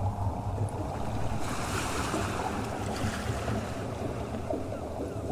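Ocean sound effect: waves washing in a steady surging rush, with a swell of hiss about a second and a half in.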